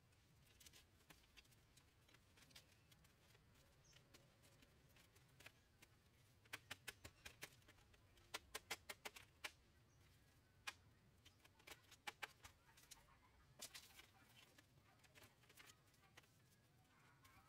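Quiet, light clicks and taps over near silence, coming in quick runs around the middle and singly later on.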